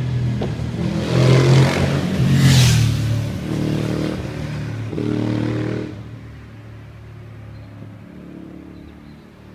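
Cagiva Raptor 1000 motorcycle's V-twin engine revving hard as the bike rides past, loudest about two and a half seconds in. A second, less loud pass follows, and the engine fades away in the second half.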